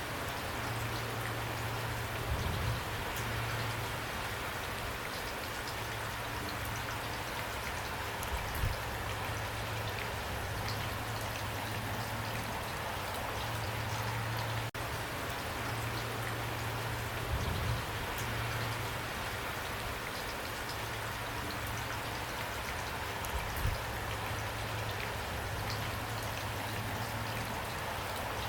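Steady rain falling, with a low hum underneath and a few brief low thuds spread through.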